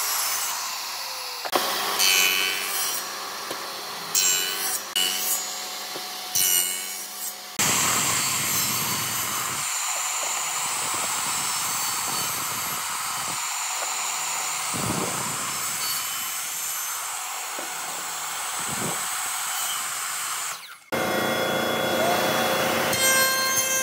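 Electric miter saw running and cutting repeatedly into blocks of old railway-sleeper timber, nibbling out notches with a series of kerfs. The first few seconds hold several short, louder bursts as the blade bites.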